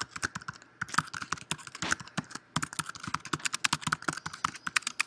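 Typing on a computer keyboard: a quick, irregular run of key clicks with a few short pauses.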